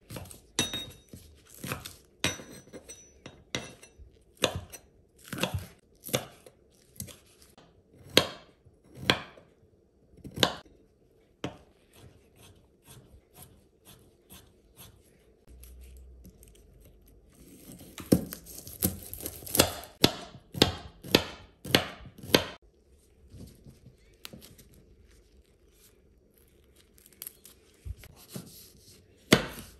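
A chef's knife cutting vegetables on a wooden cutting board: irregular knocks of the blade on the board as a spring onion and green beans are sliced, with a stretch of rustling partway through.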